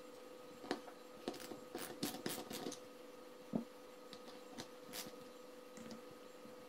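Small metal hardware and a cable being handled on a super capacitor module: scattered light clicks and taps, the loudest about halfway through, over a faint steady hum.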